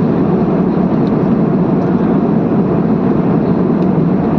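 Steady, unbroken noise of an airliner in flight heard from inside the cabin: engine and airflow noise, strongest in the low-middle range.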